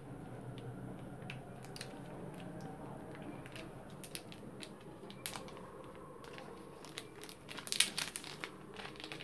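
Protective plastic film on a new smartphone crinkling and crackling under the fingers as the phone is handled, with a denser, louder run of crackles near the end.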